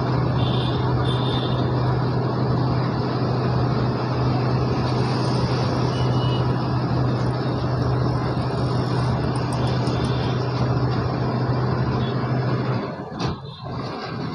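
Vehicle ride noise in city traffic: dense wind and road noise with a strong, steady low engine hum that cuts off abruptly about 13 seconds in.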